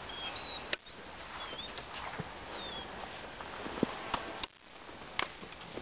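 A small bird singing short whistled notes that rise and fall, through the first three seconds, over a steady hiss, with a few sharp clicks.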